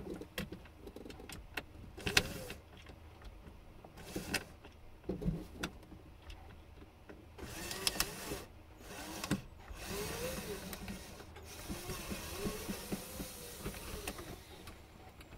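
A small electric power driver whirring in several short bursts, each rising and falling in pitch, amid clicks and knocks of tool handling as screws are worked loose.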